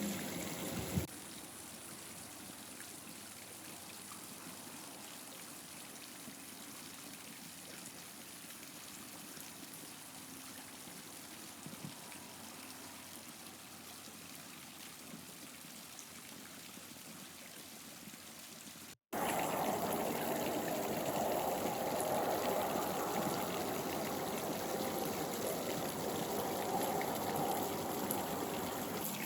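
Water from a backyard rock fountain, splashing and trickling steadily into a small pond. The sound drops out for a moment about two-thirds of the way in, then comes back clearly louder.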